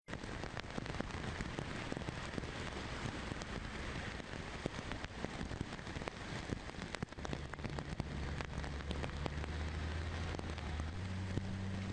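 Steady rain falling on a hard surface, a dense patter of many small drop impacts. About seven seconds in, a low steady hum joins underneath.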